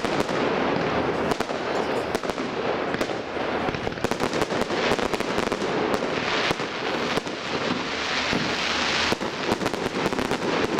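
Fireworks display: aerial shells bursting in a rapid, continuous run of bangs and crackles, with denser crackling around the middle and again near the end.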